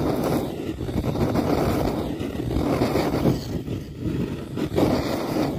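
Gas torch flame running with a steady rushing noise that swells and eases a little. It is held against spray foam impregnated with a fire-retardant mix to test whether the foam catches fire.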